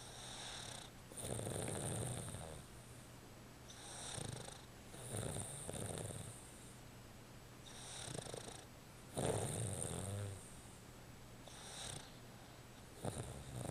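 Boston terrier snoring in its sleep, a snore typical of the breed's short muzzle. The breaths come about every four seconds, each a softer sound followed by a louder, longer snore.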